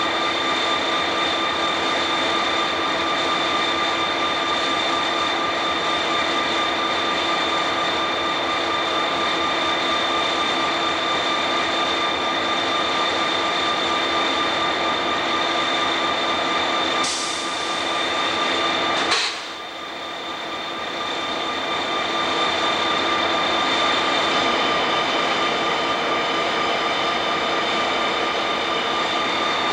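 Chessie System EMD SD50 diesel locomotives rolling slowly past at close range: a steady engine drone with a constant whine over it. A little past halfway the sound dips briefly, with two sharp clicks about two seconds apart.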